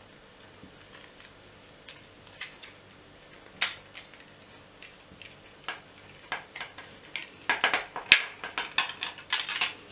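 Plastic clicks and snaps from a TV remote control's casing being pried open and handled: a few scattered single clicks at first, then a quicker run of clicks over the last three seconds.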